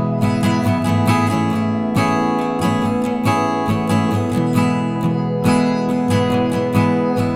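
Background music: steady acoustic guitar strumming at a regular rhythm.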